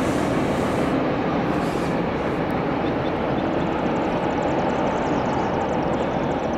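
Freight cars of a long train rolling away on the rails, a steady rumble of steel wheels on track.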